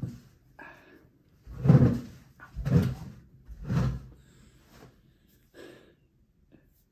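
A person shifting and settling at a wooden table and chair: three dull knocks and scuffs about a second apart, then fainter rustling.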